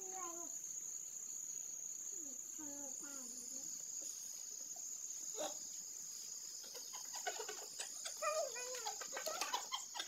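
Crickets chirring steadily, with rustling of dry straw being pulled apart and a few short calls in between, busiest near the end.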